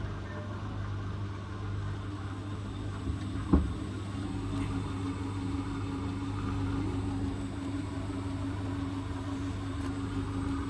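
Hotpoint WT761 Ultima washing machine running with a steady low hum; a single knock about three and a half seconds in, after which a steady motor tone comes in and holds.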